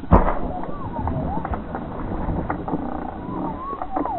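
A snakehead strikes a small surface lure with one loud splash just after the start, then lighter water splashing as the fish is pulled through the weedy shallows. Birds whistle repeatedly throughout.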